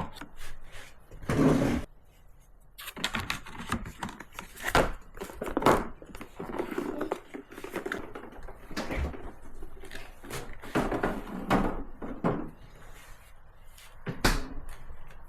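Irregular knocks and clatter of household objects being handled and set down, several sharp clunks among them.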